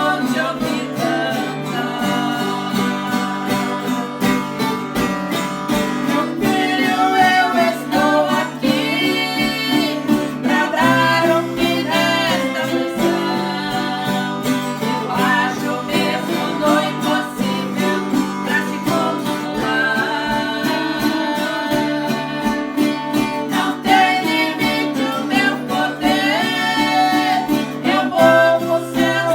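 Acoustic guitar strummed under singing of a praise song, the voice coming in and out in phrases.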